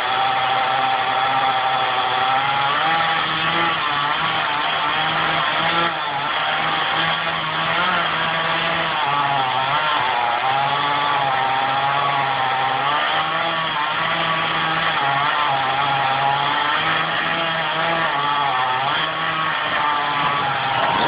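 Chainsaw running steadily, its pitch rising and falling as it works, with a brief dip about six seconds in.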